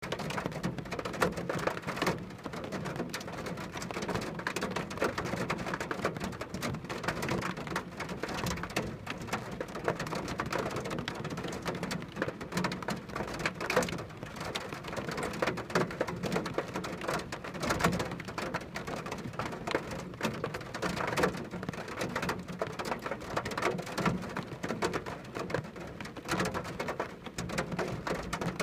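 Steady rain falling, with a dense patter of separate drops hitting a surface.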